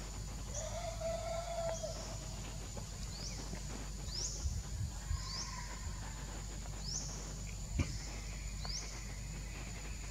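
Two drawn-out, bleat-like monkey cries, a stronger one near the start and a fainter one around the middle. Behind them a short, high, sharply rising chirp repeats about every second and a half over a steady high whine of forest insects.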